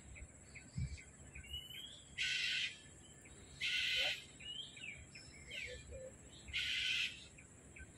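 A bird's harsh, screeching calls: three loud calls of about half a second each, with faint short chirps of other birds between them.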